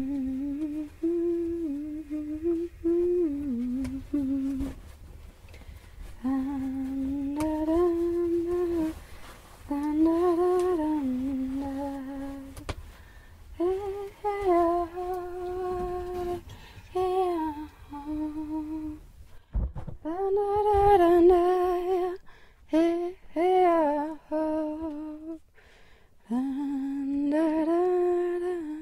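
A single voice humming a slow, wordless melody in short phrases with brief pauses between them, the pitch stepping up and down between a few notes.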